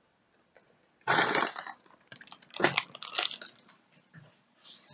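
A dog barking in short bursts, about three times, starting about a second in.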